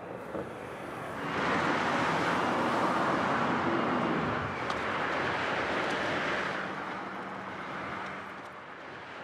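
City road traffic: a steady rush of passing cars, swelling louder for about five seconds in the middle as vehicles go by, then easing off.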